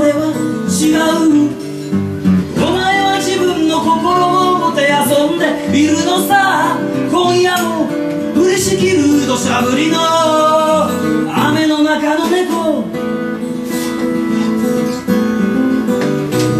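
A man sings to his own strummed acoustic guitar. About three seconds before the end his voice stops and the guitar carries on alone.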